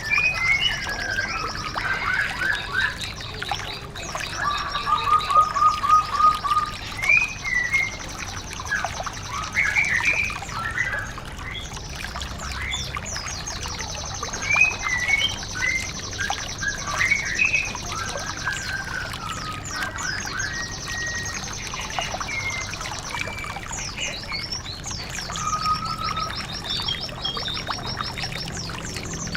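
White-eye (Zosterops) birdsong: busy chirps and slurred whistles, with long high, fast trills coming and going, over a steady trickle of running water.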